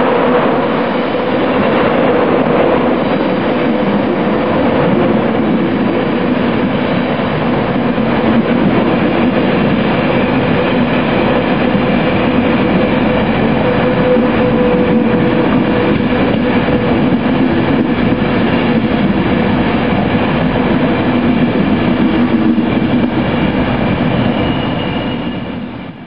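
An intercity train at a station platform, running steadily with a dense hum of several steady tones. The sound fades out near the end.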